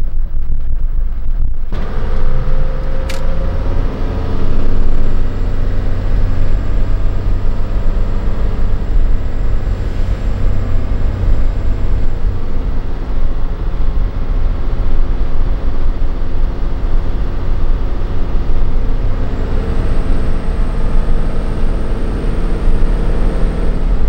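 Cabin sound of a 1993 Toyota Coaster minibus on the move: its 1HD-T turbo-diesel inline-six running under way, with a heavy low rumble. The engine note climbs about two seconds in as the bus accelerates. A single sharp click comes about three seconds in.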